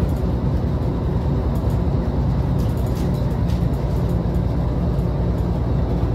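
Steady drone of a Scania L94UA articulated bus's nine-litre five-cylinder diesel and its road noise, heard from inside the cabin while the bus is under way, with a few light rattles.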